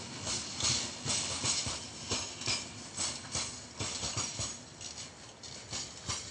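Wheels of the last gondola wagons of a freight train clicking and knocking over rail joints as the tail of the train passes and draws away, the clatter fading toward the end.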